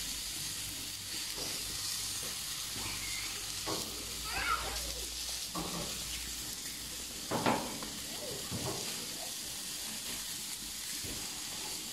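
Thin slices of meat sizzling steadily on the grates of a gas grill, with a couple of brief knocks about halfway through as the pieces are turned.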